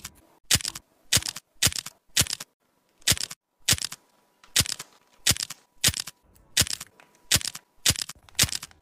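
Thin plastic food bags crinkling under a fingertip as adhesive labels are pressed onto them: a quick series of short crackles, roughly two a second.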